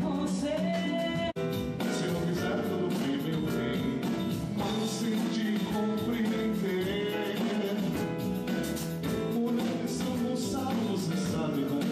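Dance music with a singer, cut off for an instant a little over a second in.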